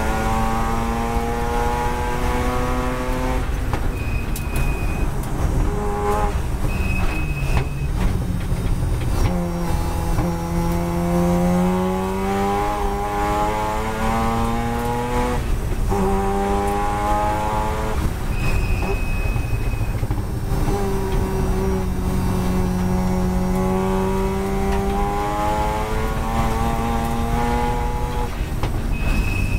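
Mazda RX-7 FD3S race car's turbocharged rotary engine heard from inside the cabin at full racing pace, its pitch climbing through each gear and dropping off at gear changes and lifts several times. A brief high steady tone comes and goes a few times.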